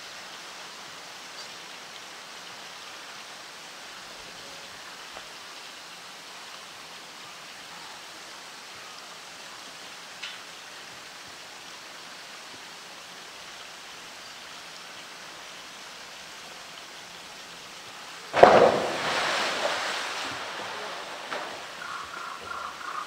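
A polar bear plunging into its pool: a sudden loud splash about three-quarters of the way through, then water sloshing and spattering as it settles. Before it, only a faint steady hiss.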